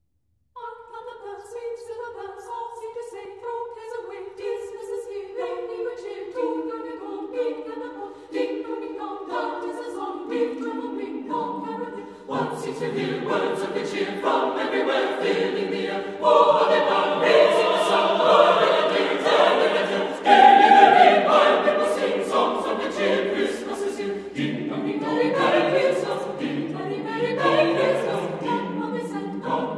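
Large mixed choir singing, opening with higher voices and growing fuller and louder as lower voices join about twelve seconds in.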